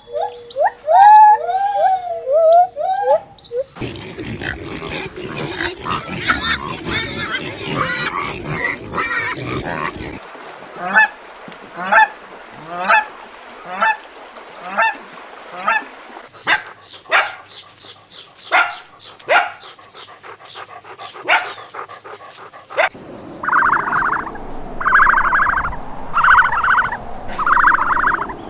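Poultry calling in a run of separate clips: a pitched wavering call at the start, a dense stretch of overlapping calls, then short calls about one a second, and four loud, harsh calls about a second and a half apart near the end.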